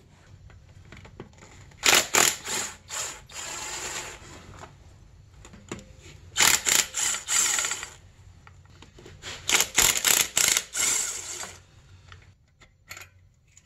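Cordless impact driver hammering out the power valve housing bolts on a two-stroke snowmobile engine, in three bursts of about two seconds each with short pauses between.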